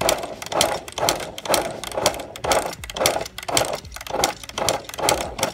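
1992 Suzuki RM125 two-stroke engine being kicked over without starting: a loud, even rhythm of mechanical bursts about twice a second that stops suddenly at the end. Weak spark is keeping it from firing.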